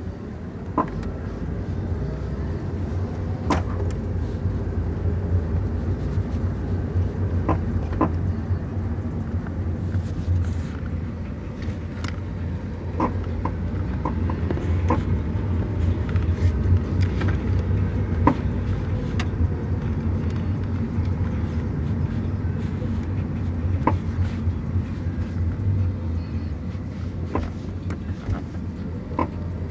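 Car braking and rolling with a steady low rumble, and a dozen or so irregular sharp pops breaking through it. This is the intermittent popping noise while braking whose cause the owner does not know.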